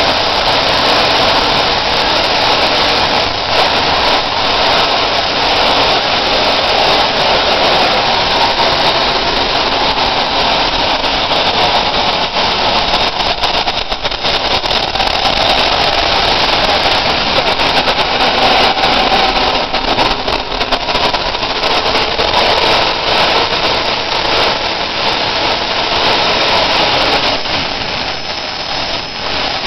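Home-built jet engine made from a converted turbocharger, running steadily on a go-kart held in place for a static test: a loud, even rush of noise that holds its level throughout.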